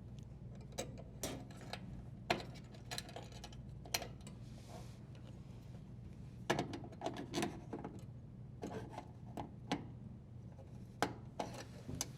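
Scattered light clicks, taps and scraping from hand work on a dishwasher's wiring junction box, as the strain relief nut is tightened and the wires are positioned.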